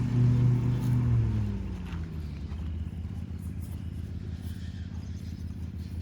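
An engine running, its speed dropping about a second in, then idling steadily with a rapid low pulse.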